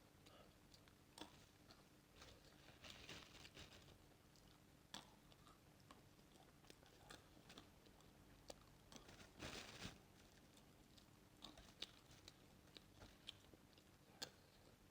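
Near silence, with faint scattered small clicks and rustles, a little louder around three seconds in and again near ten seconds, over a faint low hum.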